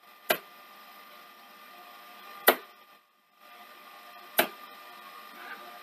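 Three sharp mechanical clicks about two seconds apart from the Mitsubishi HS8010 CCTV VHS recorder, over its faint steady hum.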